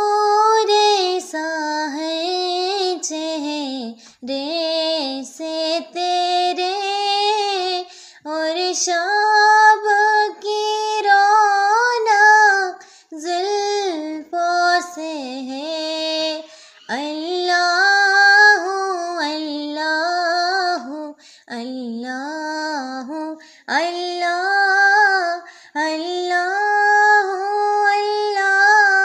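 A single high voice singing a naat, an Islamic devotional song, with a wavering, ornamented melody in phrases separated by short breaths. No instruments accompany it.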